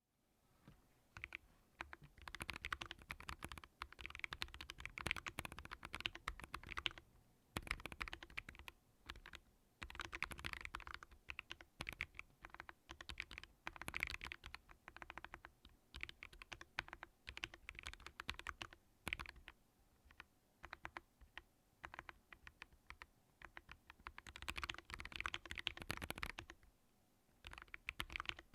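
Typing on a Vortex Core 40% mechanical keyboard fitted with MelGeek Kailh Custom Plastic switches, with 3 mm PORON foam between plate and PCB to tune the sound. Rapid runs of keystroke clacks come in bursts of a few seconds with brief pauses between them.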